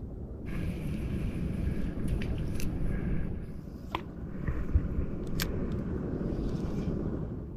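A few light clicks and rattles from a spinning rod and reel being handled, over a steady low rumble.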